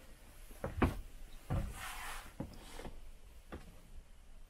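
A few light knocks and thumps spread out over a few seconds, with a brief rustle about two seconds in: someone moving about and handling things in a small room.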